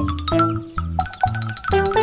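Upbeat children's background music: a bouncy bass line and short pitched notes, with a quick run of high chime-like plinks entering about a second in.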